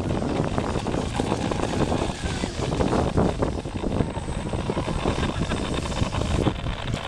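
Wind buffeting the microphone, with the faint whine of a radio-controlled model boat's motor running at speed on the water.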